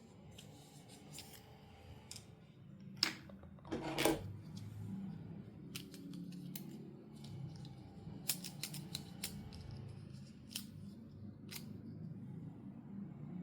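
Doll packaging being handled during unboxing: scattered sharp clicks of plastic and cardboard, with a louder rustling burst about three to four seconds in and a quick run of clicks past the middle.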